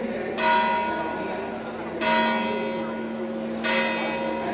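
A single church bell tolling, struck three times about a second and a half apart, each stroke ringing on and slowly fading before the next.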